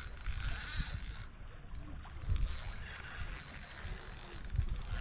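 Wind rumble on the microphone with light handling noise, and a faint steady high-pitched whine in the background.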